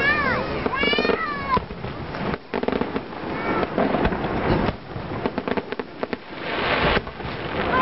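Fireworks display: repeated sharp bangs and crackling. Near the start there are two high squeals that rise then fall in pitch, and a shorter one about three and a half seconds in.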